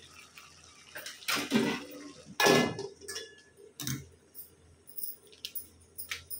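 A steel lid set down on an aluminium cooking pot on a gas stove: a few metallic clanks and clinks, the loudest and most ringing about two and a half seconds in, followed by faint small ticks.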